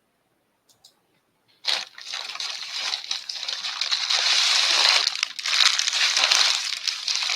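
Plastic packaging crinkling and rustling as it is handled, starting suddenly about a second and a half in and going on without a break.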